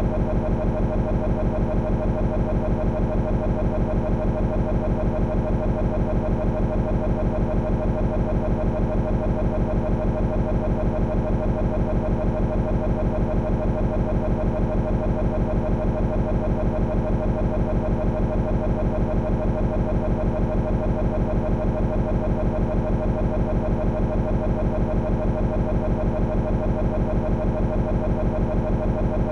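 A steady buzzing drone with a rapid, perfectly even pulse that never changes. It is a digital glitch: a short scrap of audio repeating in a loop in a corrupted video file.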